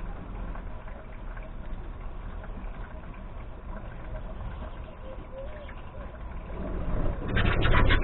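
Budgerigars chattering softly and pecking at dandelion leaves over a steady low background noise, with a brief, louder rustling flurry near the end.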